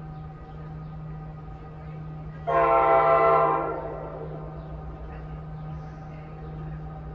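Horn of an approaching NJ Transit commuter train, one blast that starts suddenly about two and a half seconds in, holds for about a second and fades away. A steady low hum runs underneath.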